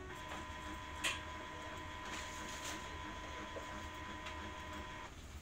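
Epson L1300 inkjet printer's mechanism running with a steady motor whine, with one sharp click about a second in; the whine stops shortly before the end.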